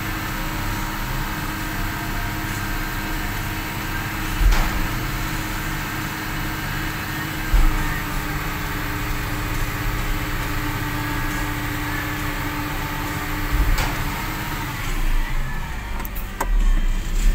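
UD Croner garbage truck's diesel engine running steadily, with a few dull thumps and a louder, uneven stretch near the end.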